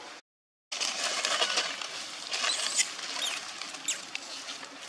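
Dry leaf litter rustling and crackling under a macaque moving on the forest floor, with a few brief high-pitched chirps in the middle. The sound drops out for half a second near the start.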